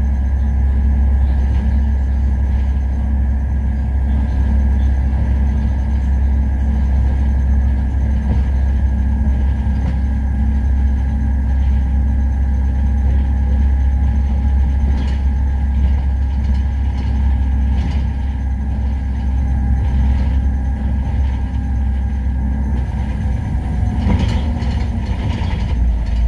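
City bus driving, heard from inside the cab: a steady low engine drone with road noise and a thin whine that drifts down in pitch toward the end.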